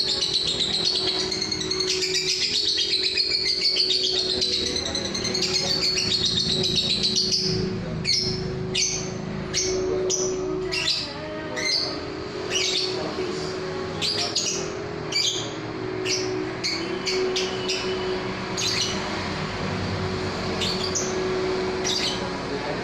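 Lovebird singing: a long, warbling high trill for about the first seven seconds, then a string of short, sharp chirps at irregular intervals. A steady low hum sits underneath.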